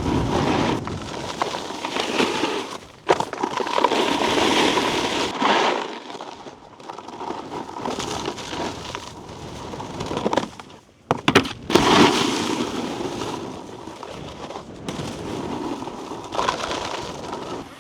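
Snowboard riding over icy, slushy snow, the base and edges scraping and chattering, with a sharp knock about three seconds in and a cluster of sharp knocks around eleven to twelve seconds.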